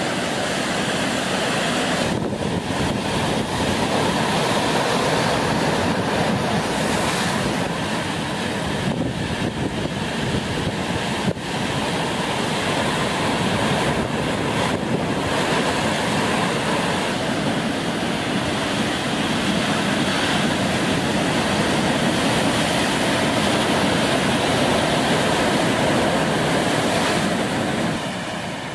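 Heavy surf from a rough, storm-whipped sea breaking on rocks: a continuous loud wash of noise.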